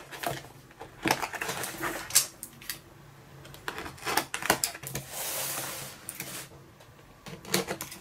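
Cardboard box being handled and opened on a wooden table: sharp clicks and knocks of cardboard and fingers, with about a second and a half of scraping and rustling about five seconds in.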